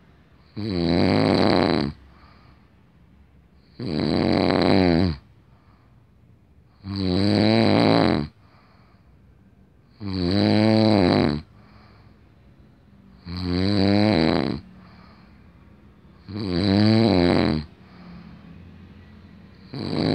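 A man snoring in his sleep: seven snores at a steady pace, one about every three seconds, each lasting just over a second with a falling pitch, and the last cut off at the end, with quiet between them.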